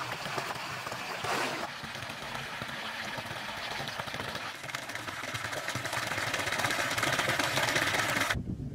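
Water splashing and pouring into a shallow pool, a steady hiss that grows a little louder and then cuts off suddenly near the end.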